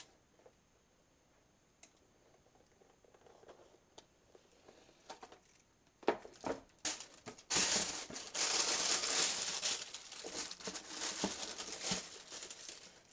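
Faint handling clicks, then about six seconds in a loud stretch of crinkling and rustling: packaging being crumpled and pulled away from new soccer cleats as they are unboxed.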